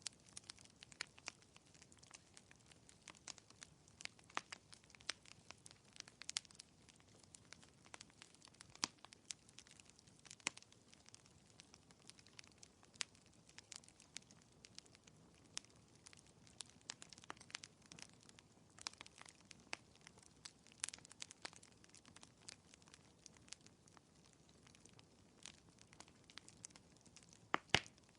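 Wood fire crackling in a fireplace: faint, irregular small pops and snaps over a soft hiss, with a louder pop near the end.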